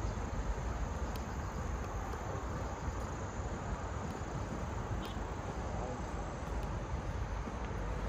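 Crickets chirping faintly in the trees and brush over a steady outdoor background noise.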